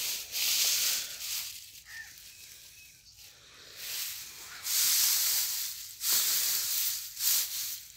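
Dry rice-straw mulch rustling and crackling in several bursts as it is moved by hand.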